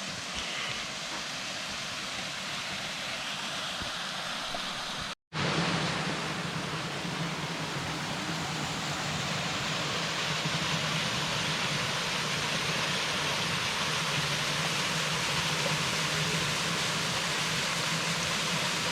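Small waterfall on a woodland stream: steady rushing of falling water. The sound cuts out briefly about five seconds in and returns a little louder.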